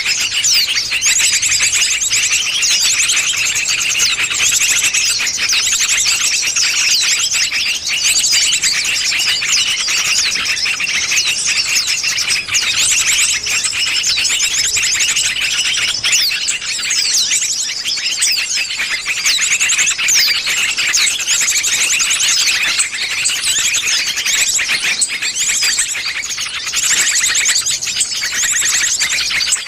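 Bird-luring (pikat) call recording: a dense, unbroken chorus of high chirps and rapid trills, as from many small birds calling at once.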